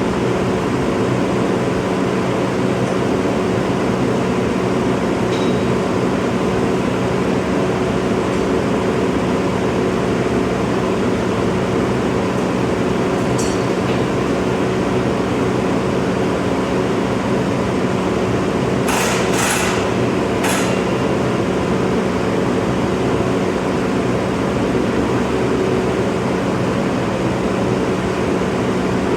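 Engine running steadily at a constant speed, with three sharp metallic clanks a little after the middle.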